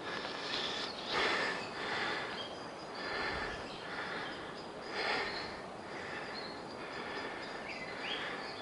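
A person breathing hard close to the microphone, soft noisy breaths coming about once a second.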